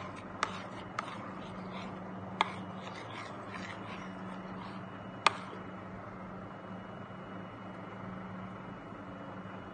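Steady low hum of room tone with a few sharp clicks, the loudest about five seconds in.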